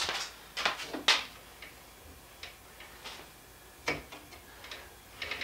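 Scattered light clicks and knocks from hands working inside a da Vinci Jr. 1.0 3D printer, pushing its print bed back and forth by hand. The sharpest knock comes about a second in.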